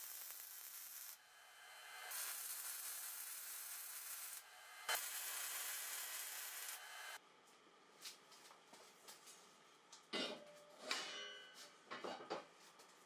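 MIG welding arc hissing and crackling steadily. It breaks off about a second in and again near four and a half seconds, then starts again each time, and stops for good at about seven seconds. After that come only quiet, scattered knocks and scrapes of metal being handled.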